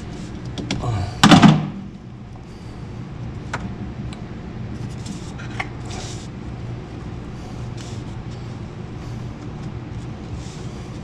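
Pliers and wire strippers clicking and snipping on a washing machine's motor supply wire as it is stripped for splicing, over a steady low hum. A louder clunk comes about a second in.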